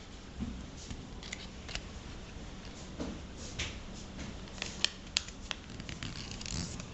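A sheet of paper being folded and creased by hand: scattered short crackles and taps, with a couple of sharper clicks about five seconds in.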